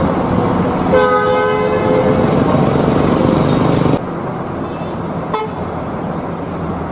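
Vehicle horn held for about a second as one steady two-note chord, starting about a second in, over the running of bus engines and traffic. The sound drops at a cut about four seconds in to quieter engine and traffic noise, with a brief short toot about a second and a half later.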